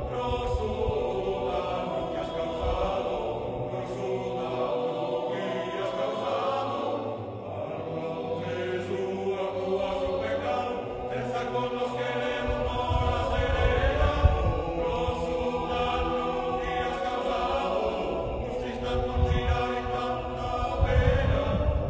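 Sardinian choir singing in several-part harmony, with long held notes over a low bass line.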